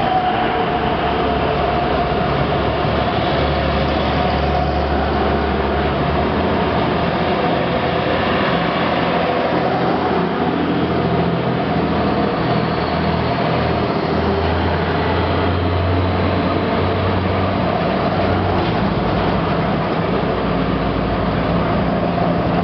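A column of WWII-era US Army trucks and Dodge weapons carriers driving past slowly, their engines running in a steady, continuous drone, the low engine note swelling as individual vehicles come close.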